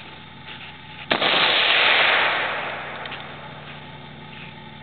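A gunshot from an AR-15-style rifle about a second in: a sharp crack followed by a loud hissing wash that fades out over about two seconds.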